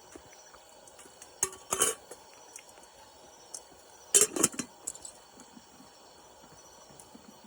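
Tableware clinking as someone eats: utensils knocking against dishes, in two short clusters of clicks about one and a half and four seconds in, with a few lone clicks between.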